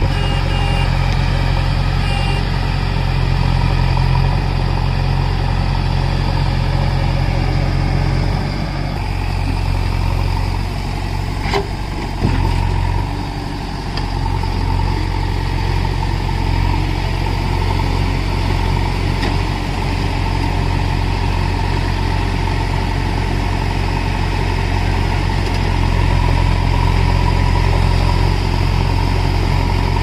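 JCB 3DX backhoe loader's diesel engine running steadily while the backhoe arm digs, the engine note dipping briefly a couple of times, with two short knocks near the middle.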